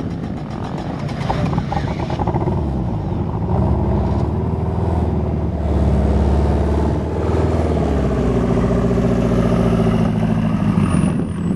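Dune buggy engines running. One engine note swells louder a few seconds in, then from about seven seconds in an engine revs up with rising pitch as a buggy accelerates.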